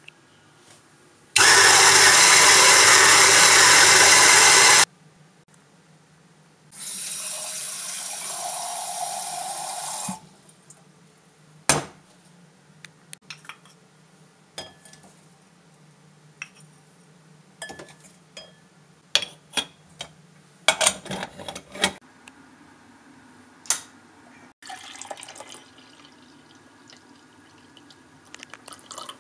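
An electric coffee grinder runs for about three and a half seconds, then a quieter steady rushing sound follows for about three seconds. After that come scattered metal clicks and knocks as an aluminium stovetop moka pot is handled and put together.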